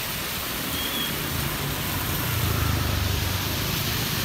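Road traffic on a rain-soaked street: a steady hiss of rain and tyres on wet asphalt, with a vehicle engine growing louder from about halfway through as it comes past.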